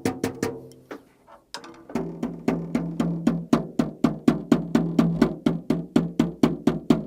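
Mesh-headed acoustic drum struck repeatedly: a few hits, a short pause, then a steady run of even strokes at about five a second, each with a short low ring of the same pitch. The head is dampened, which keeps it quieter.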